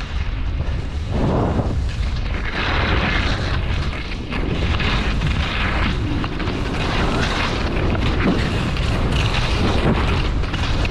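Wind buffeting the microphone with a continuous low rumble while skiing downhill, and the hiss of skis on snow rising and falling in repeated surges as the skier turns.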